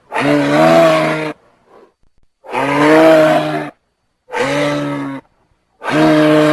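Giraffe calling: four low, pitched bellows in a row, each about a second long, with short gaps between them.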